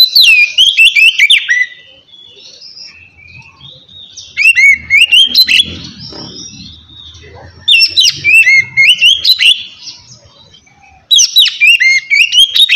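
Oriental magpie-robin singing its loud, open 'ngeplong' song: four phrases of quick, sliding whistled notes, about three and a half seconds apart.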